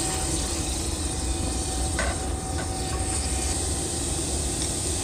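Diced onions and garlic sizzling in olive oil in a pot, a steady hiss over a constant low rumble, with a couple of faint clicks about two seconds in.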